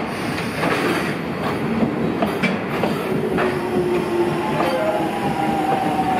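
Freight train of container flatcars rolling past on the rails, with wheels knocking over rail joints and a steady rumble. About three seconds in, a thin wheel squeal comes in and holds.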